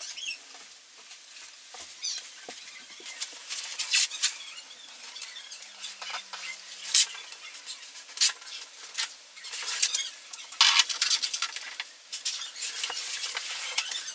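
Hand-work noises on a vinyl plank floor: a paper towel rubbing the floor, then blue painter's tape pulled off its roll in several short, sharp rips and pressed down along the tub edge.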